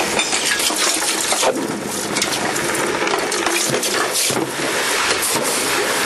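Still-hot copper ingots and dross quenching in a bucket of water: a steady hissing sizzle with many sharp clinks and knocks as the metal pieces hit the pan, the bucket and each other.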